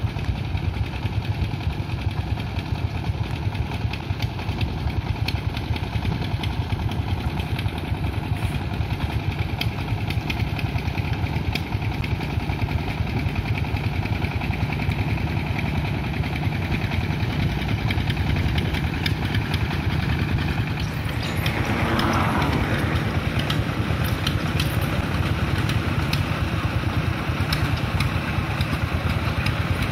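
Horizontal single-cylinder diesel engines of two-wheel hand tractors running with their exhaust pipes removed, a rapid, steady chugging. The sound grows louder for a couple of seconds about two-thirds of the way through.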